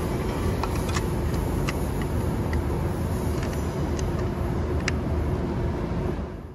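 MTR West Rail Line electric train running away over the points, a steady rumble with a level hum and several sharp clicks as its wheels cross the pointwork. The sound fades out near the end.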